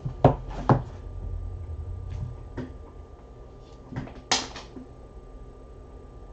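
Short clicks and taps of trading cards being handled and set down on a table, a few scattered ones and a louder quick cluster about four seconds in.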